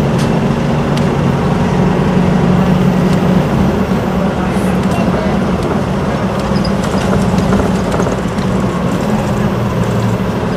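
Isuzu Erga city bus's four-cylinder diesel with its torque-converter automatic, running steadily under way with road noise, heard from inside the cabin. The engine note changes and drops about four seconds in.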